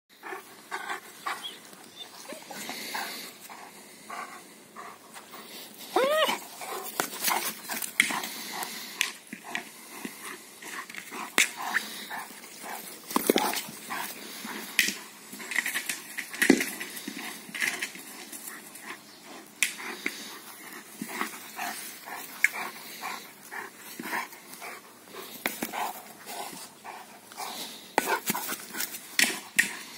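German Shepherd playing with a plastic ball on grass: irregular knocks, thuds and scuffs as the ball is nosed and bitten, with a short whine about six seconds in.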